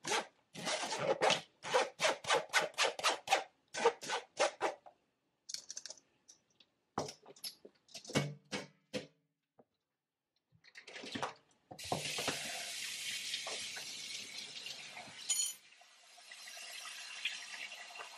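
A metal spoon scraping blended pulp through a wire-mesh strainer in quick repeated strokes, about three a second, then a few scattered knocks. About twelve seconds in, a kitchen tap starts running steadily into the sink.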